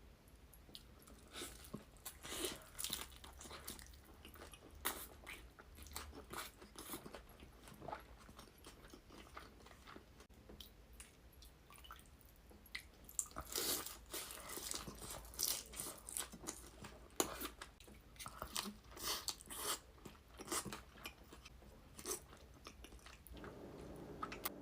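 Close-miked chewing and biting of crispy fried birria tacos: irregular crunches and crackles, coming thickest over the middle stretch.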